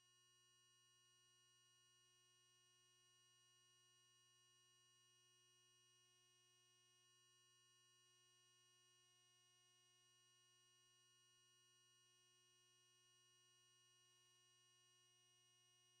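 Near silence: only a faint, steady electrical hum with a few thin, unchanging tones.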